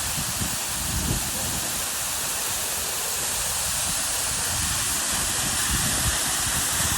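Waterfall pouring down heavily in a steady rush of water.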